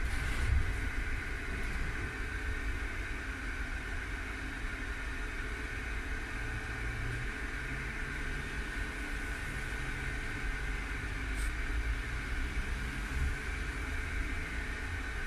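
Inside a 1963 Düwag GT6 tram standing still: a steady hum with a high whine from the tram's onboard equipment over a low rumble of traffic.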